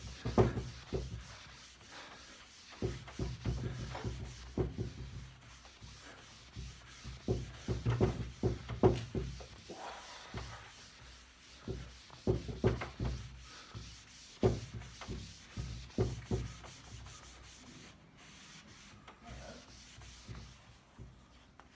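A hand-held pad rubbed briskly over a waxed pine tabletop, buffing the wax. It comes in runs of quick strokes with short pauses, and the rubbing thins out in the last few seconds.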